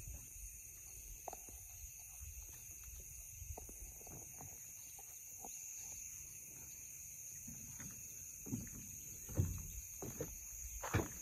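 Steady high-pitched chorus of calling insects. It is broken by scattered soft knocks and thumps, the loudest near the end.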